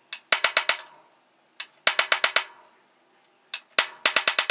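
Soft-face mallet tapping the mini lathe's steel headstock spike into the end grain of a small hardwood blank standing on a bench. The taps come in three quick runs of four or five, with a single tap or two between runs.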